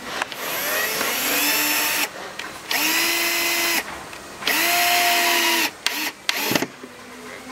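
Cordless drill-driver driving screws into the desk near a hinge. The motor runs in three bursts of one to two seconds, each winding up to a steady whine. A few quick trigger taps follow near the end.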